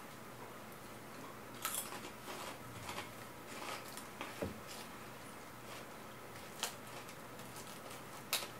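Faint, sparse crinkling of a foil snack bag and crunching of snacks being eaten: a few short crackles scattered over several seconds.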